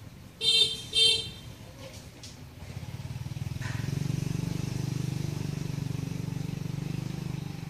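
Two short, loud squawks about half a second apart, then a motor vehicle's engine that grows louder and runs steadily for several seconds before fading near the end.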